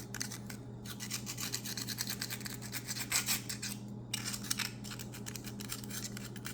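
Rapid scratching strokes of a metal pick scraping packed gunk and rust out of the blade channels of an old stockman pocket knife, with two short pauses.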